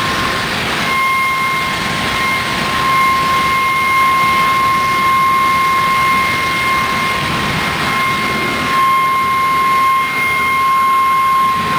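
Steady machine noise with a constant high-pitched whine that comes in about a second in.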